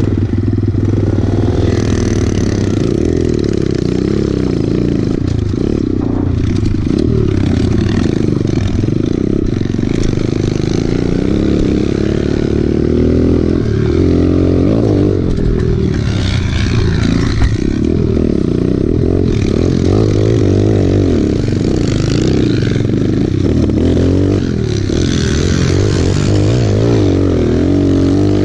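Small pit bike engine revving up and down constantly as it is ridden over rough dirt trail, its pitch rising and falling with each throttle change. The bike's chassis clatters and rattles over the bumps and ruts.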